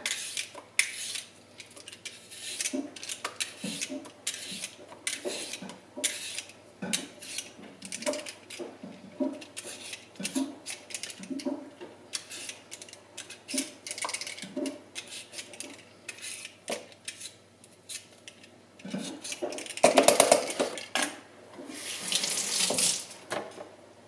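Y-shaped vegetable peeler scraping the skin off a raw potato in quick repeated strokes, roughly one to two a second. About twenty seconds in, a tap runs for a few seconds.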